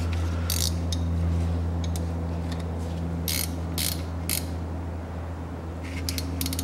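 A steel combination wrench clinking and clicking against a small bolt on a front differential housing as the bolt is tightened back in, in short separate clicks over a steady low hum.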